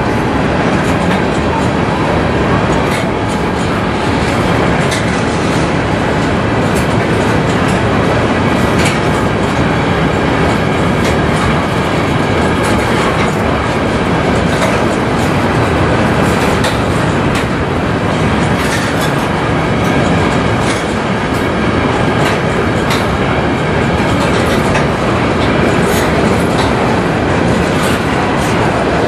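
Empty covered hopper cars of a sand train rolling past: a steady rumble and clatter of steel wheels on rail, with clickety-clack at the rail joints and frequent sharp metallic clicks.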